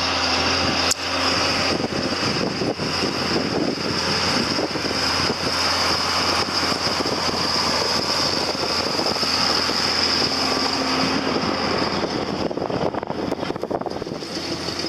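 Vehicle engine running steadily, with a constant high whine over it.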